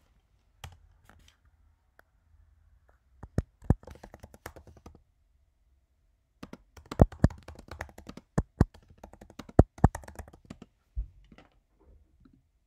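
Typing and clicking on a computer keyboard and mouse: irregular sharp clicks, a short flurry about three seconds in and a longer, louder run from about six and a half to ten seconds, with a few more near the end.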